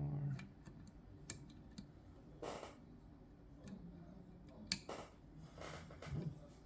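Lever pick working the levers of a Chubb GPO No.6 lever lock under tension: a few scattered light clicks and short scraping sounds, with one sharper click about two-thirds of the way through.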